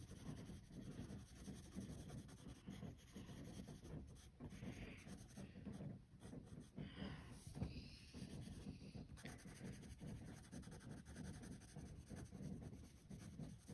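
Faint scratching of a yellow wooden graphite pencil on sketchbook paper, in repeated back-and-forth shading strokes pressed dark into the corner of a leaf.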